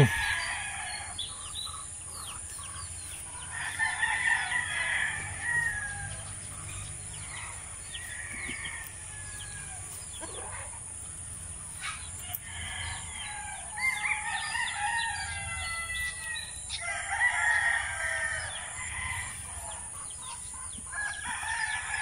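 Native chicken roosters crowing, several long crows a few seconds apart.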